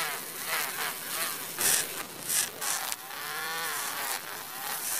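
Small electric motor of a toy tractor whining steadily as it drives a sanding disc through a string belt, its pitch wavering in the middle. A small sickle blade is held against the spinning disc and scrapes in several short grinding bursts.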